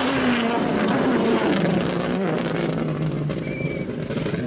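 Hyundai i20 Coupe WRC rally car's turbocharged four-cylinder engine under hard driving as it passes and pulls away. The pitch falls and rises through the first couple of seconds, then holds steady. Tyres scrabble on gravel underneath.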